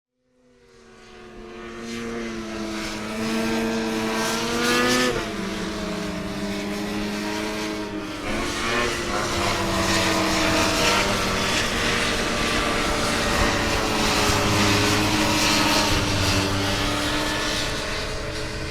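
Snowmobile engine running. It fades in over the first couple of seconds and climbs in pitch until about five seconds in, then drops back and runs on with its pitch rising and falling as the throttle changes.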